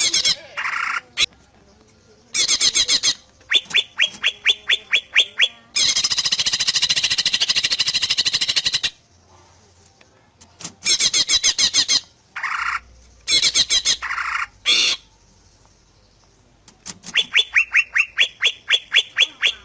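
Green leafbird (cucak ijo) singing loud, varied phrases: quick runs of about ten rapid rising notes, short bright calls, and a dense buzzy chatter lasting about three seconds near the middle, separated by short pauses.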